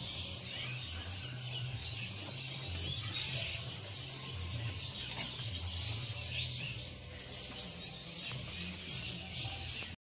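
Many caged songbirds chirping and calling, short high chirps overlapping throughout, over a low steady hum.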